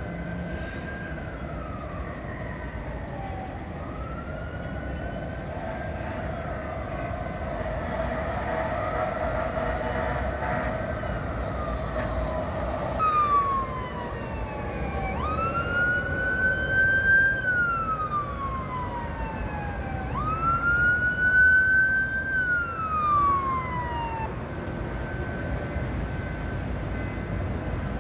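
Fire engine siren wailing in slow rises and falls of pitch, getting louder as it approaches and stopping about three-quarters of the way through, over a steady background of traffic noise.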